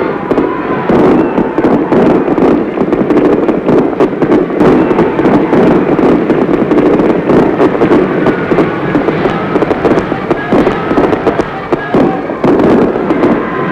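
Large stadium crowd cheering and applauding: a dense, steady crackling roar on an old film soundtrack.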